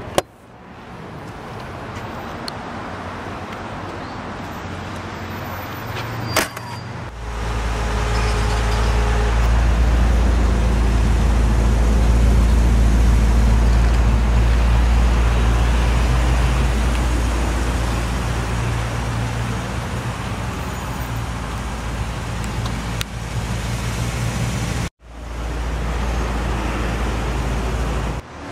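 Steady low motor-vehicle rumble, much louder from about seven seconds in, with a sharp click just before.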